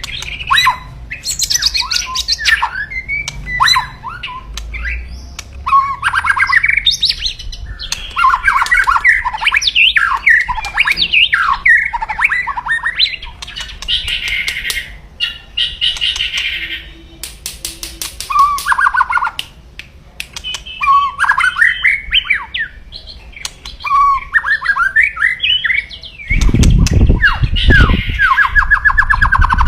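White-rumped shama (murai batu) singing fast, varied whistled phrases mixed with harsh rattling 'kretekan' calls, the aggressive song used to provoke rival shamas. Near the end a loud low-pitched noise comes in under a rapid run of repeated notes.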